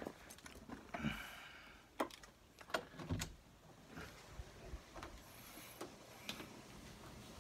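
Handling noise from a handheld phone camera: a string of sharp clicks and knocks with some rustling, busiest in the first three and a half seconds, then a few fainter ticks.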